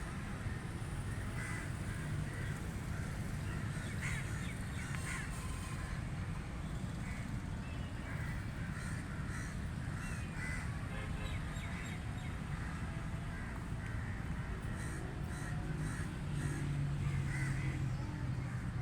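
Crows cawing, many short calls scattered through the stretch, over a steady low background rumble.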